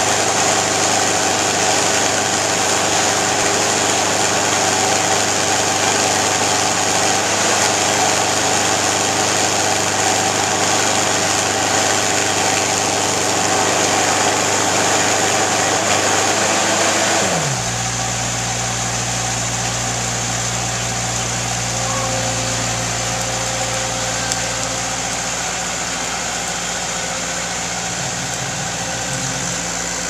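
Engine of a Niftylift SD64 self-propelled boom lift running steadily as the machine drives. About two-thirds of the way through, the engine speed falls to a lower, quieter running.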